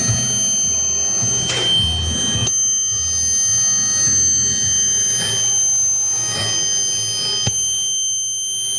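Steady high-pitched radio tones from a home-built shortwave crystal radio, played through loudspeakers over static hiss and a low rumble. One tone cuts off about two and a half seconds in, and another comes in later and cuts off abruptly near the end. The uploader takes the tones for HAARP transmitter signals.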